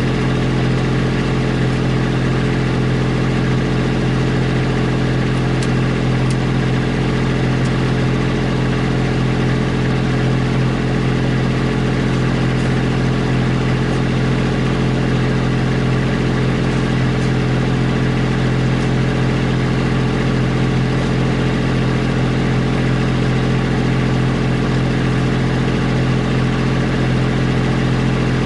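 Kubota B2650 tractor's three-cylinder diesel engine running at a steady speed, a constant drone with no change in pitch or loudness.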